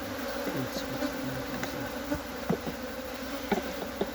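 A mass of honeybees from an opened hive buzzing in a steady drone, with a few light knocks from handling partway through.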